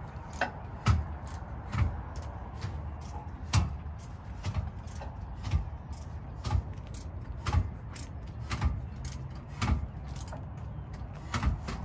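A steady series of sharp clicks, each with a dull thump, about one a second.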